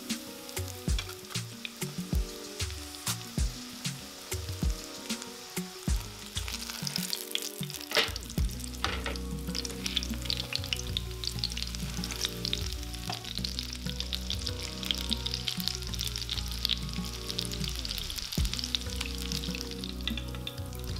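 Panko-breaded chicken cutlet frying in hot oil in a nonstick pan: a steady sizzle that grows fuller from about six seconds in. Sharp clicks sound through the first several seconds.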